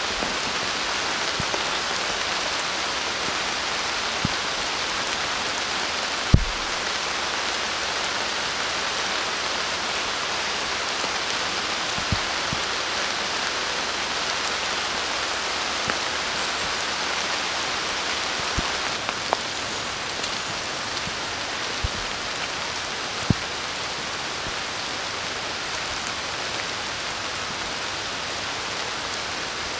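Steady rain falling on forest foliage, an even hiss, with a few sharp taps now and then.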